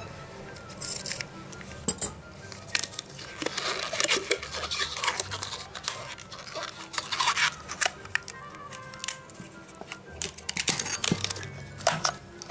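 Background music, over frequent short rustles, clicks and snaps of a latex balloon being cut with scissors and stretched over a wine glass by hand.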